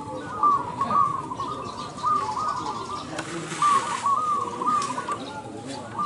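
Caged zebra doves (perkutut) cooing, in repeated clusters of quick rolling notes from more than one bird, overlapping.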